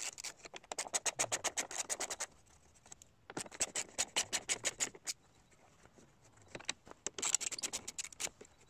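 Hand screwdriver turning out screws from the plastic cover above a VW Passat B6 grille: rapid clicking in three runs of one to two seconds each, with short pauses between.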